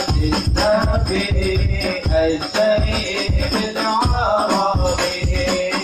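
Hadroh ensemble playing through a PA system: rebana frame drums and a deep bass drum beat a steady driving rhythm, with a voice singing a melody over it.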